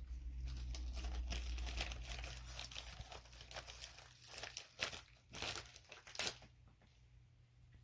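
Packaging around CDs being crinkled and torn open by hand. The crinkling is steady at first and gives way to a few separate sharp crackles in the second half.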